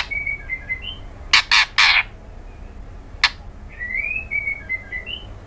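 White-rumped shama calling: soft, gliding whistled phrases near the start and again around four seconds in, broken by three loud harsh rasping calls about a second and a half in and one sharp click a little after three seconds.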